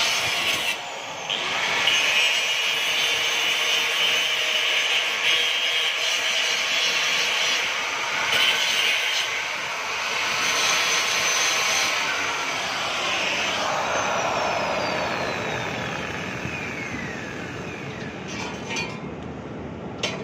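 Handheld angle grinder grinding metal, a harsh continuous noise with a few short breaks as the disc comes off the work. Past the middle it is switched off and its whine falls slowly in pitch as the disc spins down.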